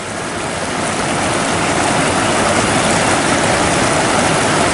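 Shallow rocky river flowing over stones, a steady rushing of water.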